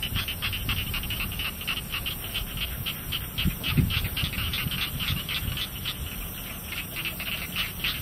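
Night chorus of frogs and insects: a rapid pulsed calling at about five pulses a second over a steady high-pitched insect trill, with low rumbling from wind or handling of the microphone.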